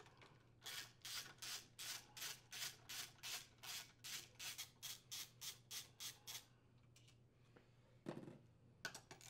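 Socket ratchet on a 10 mm socket clicking in quick, even strokes, about three a second, while backing out a crankcase cover screw. The strokes stop after about six seconds, and a brief rub and a few faint clicks follow near the end.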